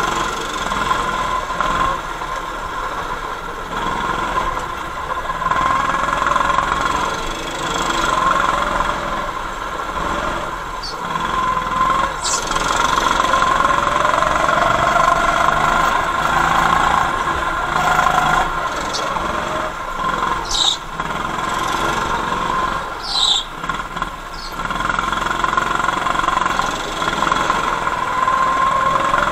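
Go-kart running laps on an indoor track, heard from on board: a steady motor drone that rises and falls in pitch with the throttle. Several short tyre squeals come through the corners.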